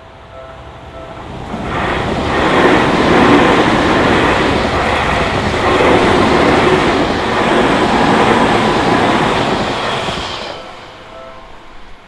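Electric commuter train passing over a Japanese level crossing: its wheel and rail noise builds about two seconds in, stays loud for about eight seconds, then fades. The crossing's warning bell clangs at the start, is drowned out while the train passes, and is heard again briefly near the end.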